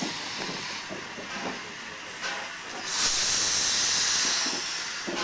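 FS Gr.981 rack steam tank locomotive passing at walking pace. About three seconds in, a loud burst of steam hissing starts suddenly from low at the front of the engine, typical of open cylinder drain cocks, holds for about a second and a half, then fades.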